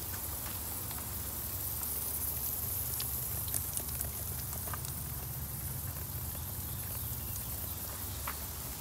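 Steady hiss and patter of water from a patio misting system, with scattered small drips and ticks over a low steady hum. The hiss is brightest a few seconds in.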